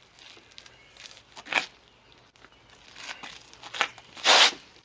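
600-grit wet sandpaper rubbed over a plastic headlight lens in a few short sanding strokes, the longest and loudest near the end. It is working the lens harder to cut out its pitted, hazy oxidation.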